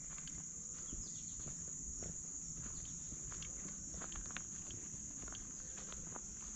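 A steady, high-pitched chorus of summer insects in the woods, with scattered footsteps of people walking on the trail.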